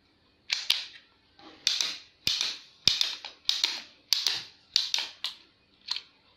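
Plastic blowback action of a 3D-printed PLA M9 Beretta rubber band pistol clacking as it is cocked and fired, about ten sharp clicks a little over half a second apart, each trailing off in a brief rasp.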